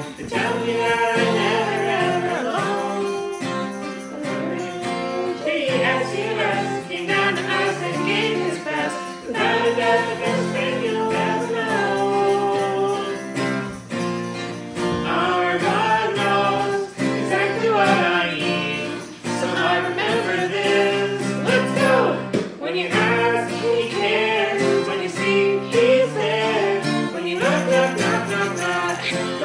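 Acoustic guitar strummed while a man sings a children's worship song.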